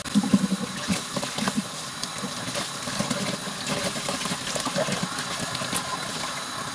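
Tap water running into a plastic basin while hands rub and rinse a whole raw chicken, with small splashes and wet squelches over the steady flow.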